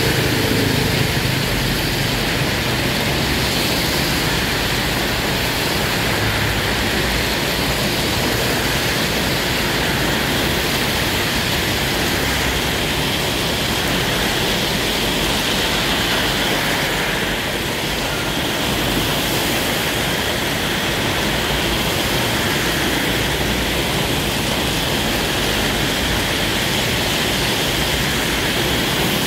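Torrential rain falling on an asphalt road, a dense steady hiss, with cars and motorbikes driving through the downpour and the water on the road.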